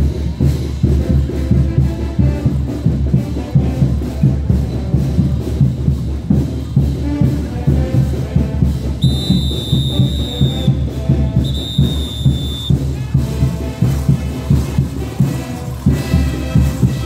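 Caporal music from a brass band with a steady, pounding drum beat, and the jingle of the dancers' boot bells. About halfway through, two long whistle blasts sound, one just after the other.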